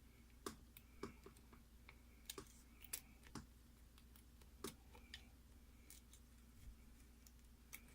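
Faint, scattered small clicks and ticks of a lock pick working the pins inside a lock, over a dozen at irregular intervals.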